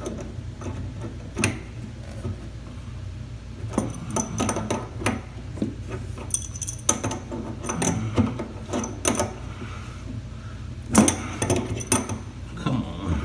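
Irregular metallic clicks, clinks and knocks of a wrench working on a braided water supply-line nut at a shut-off valve, with a cluster of louder knocks about eleven seconds in.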